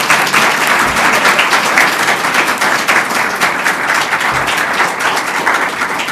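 Audience applauding, a dense, steady patter of many hands clapping.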